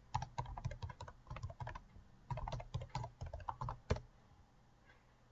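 Typing on a computer keyboard: two fast runs of keystrokes with a short pause between them, ending in one louder click just before four seconds in.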